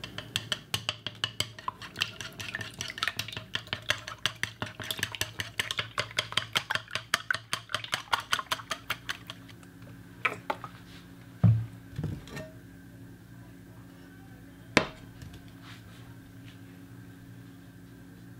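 Raw eggs being beaten in a ceramic bowl, the utensil clicking against the bowl in quick, even strokes for about nine seconds. After that come a few separate knocks and clinks of cookware, one sharp one near the end.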